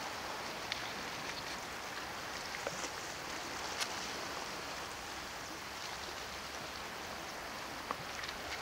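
Small sea waves lapping against shoreline rocks: a steady wash of water with a few brief sharp splashes or ticks scattered through it.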